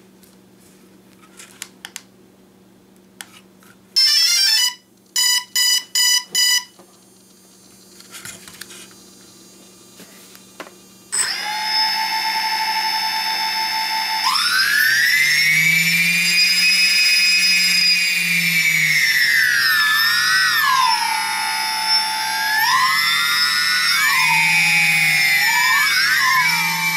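Phantom 2 Vision quadcopter powering up: a few light clicks, then a short rising startup tone and four quick beeps about five seconds in. About eleven seconds in, the newly fitted T-Motor MN2214 brushless motors, spinning without propellers, start with a steady high whine, then rise and fall in pitch several times as they are throttled up and down.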